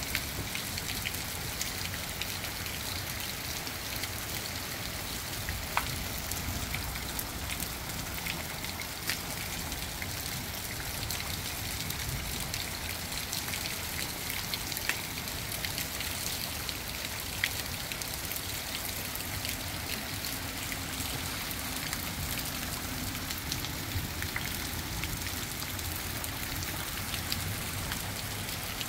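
Steady rain falling on wet concrete walkways and puddles: an even hiss dotted with sharp taps of single drops landing close by.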